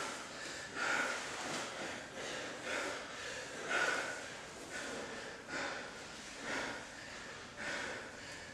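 Hard, rhythmic breathing of grapplers exerting themselves mid-roll: sharp exhales through the nose about once a second.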